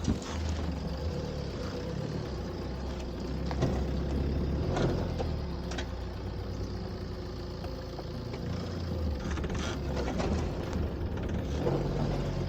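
Tata Safari Storme's diesel engine running under load in two-wheel drive on a steep off-road climb, with scattered knocks and crunches from the tyres and loose ground.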